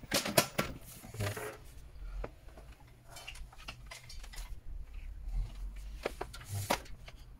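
Scattered clicks and knocks of hands working at the back of a desktop PC tower, plugging in a keyboard cable, with the loudest knocks in the first second and a couple more near the end.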